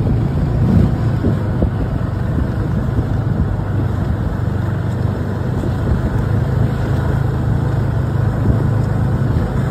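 Snowmobile engine running steadily while under way, a constant low drone with no breaks or changes in speed.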